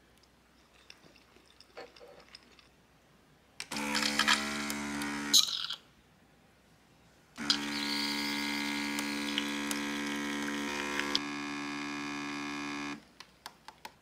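Small electric motor running in two steady bursts, a short one of about two seconds and then a longer one of about five seconds that drops slightly in pitch near its end. A few faint clinks come before it.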